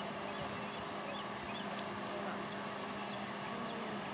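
Street ambience: a steady low hum with small birds chirping now and then.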